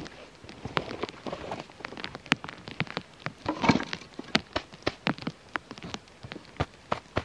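Irregular pattering ticks of heavy wet snow falling on a canvas tent. A louder clatter comes about three and a half seconds in as a canvas firewood tote is set down inside the tent door.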